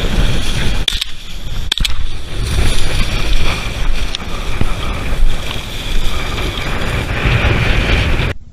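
Wind buffeting a gun-mounted camera's microphone, giving a loud, steady rushing noise, with a couple of sharp clicks in the first two seconds.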